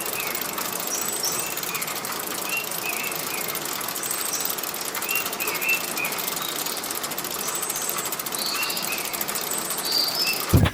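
Loud, steady insect drone with a very fast pulsing, typical of cicadas, and a bird repeating short chirps every second or so over it.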